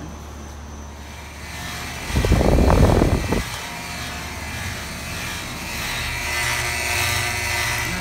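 Heat pump outdoor unit running: a steady low hum, a loud low rumble about two seconds in, then the fan's airy rush, which builds and grows louder toward the end.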